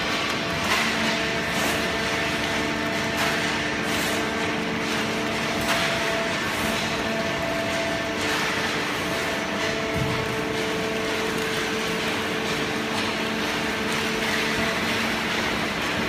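Automatic horizontal hydraulic cardboard baler running: a steady machine hum with several held tones, and a few faint knocks, loudest about ten seconds in.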